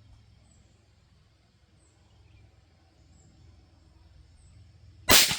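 A single shot from a Marlin 782 bolt-action .22 Magnum rifle near the end: a sharp, loud crack followed by an echo that starts to trail off.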